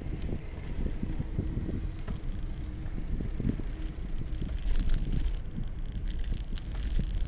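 Wind buffeting the microphone on a moving bike: a heavy, fluttering low rumble, with a few light clicks and rattles along the way.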